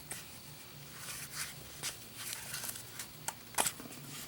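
Faint handling noise from a solid copper Zippo lighter being turned over in the hands: scattered small clicks and taps, a few sharper ones in the second half.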